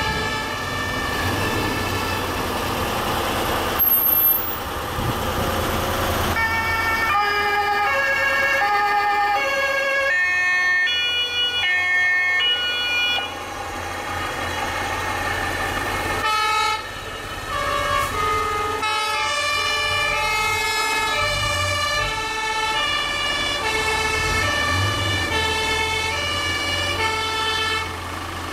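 Two-tone sirens of several fire engines sounding at once, each stepping between a high and a low note about every half second, their pitches overlapping, over the trucks' engines as they drive past. A brief loud knock about four seconds in.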